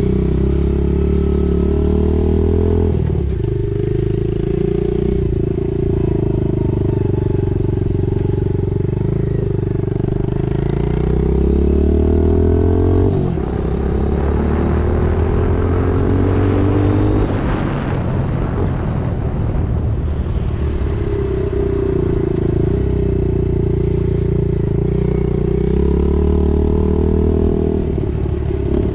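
Yamaha TT-R90 dirt bike's small four-stroke single-cylinder engine running under throttle as the bike accelerates: the pitch climbs steadily and drops sharply twice at gear changes. For several seconds in the middle, at top speed, a rushing noise swamps it.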